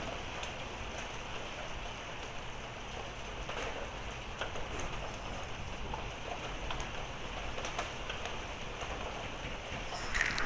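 Steady rain falling, with scattered sharp ticks of drops and pea-size hail striking hard surfaces. There is a brief louder burst near the end.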